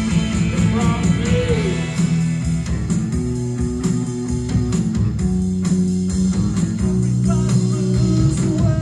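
Rock band playing live: electric guitars and bass over drums, with sliding guitar or vocal lines.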